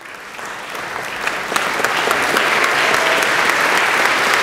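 A large chamber of legislators applauding in a standing ovation: the clapping starts up, swells over about the first two seconds, then holds steady and dense.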